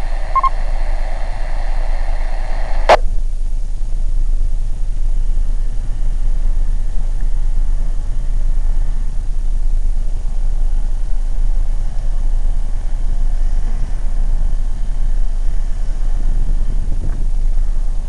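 Two-way radio hiss that cuts off with a click about three seconds in, followed by a steady low rumble.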